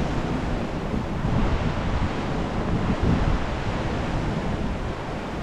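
Sea swell washing against a rocky shore, with wind blowing on the microphone: a steady rush of noise with a few heavier surges.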